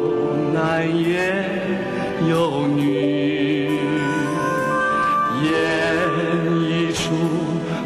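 Music: a slow song with long held sung notes over instrumental accompaniment.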